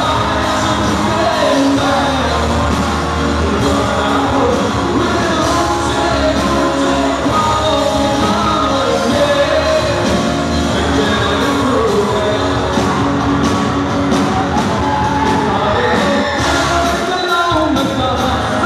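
Rock band playing live through a PA in a large hall: a lead singer singing over acoustic and electric guitars, bass and drums.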